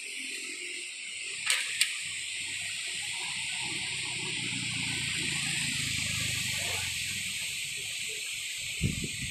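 Strong wind blowing, a steady high rushing hiss, with low wind rumble on the microphone for a few seconds in the middle. Two sharp clicks about a second and a half in, and short low thumps near the end.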